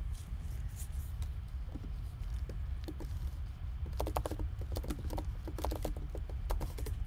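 Typing on a computer keyboard: scattered key clicks, then a quick run of them about four seconds in, over a steady low hum.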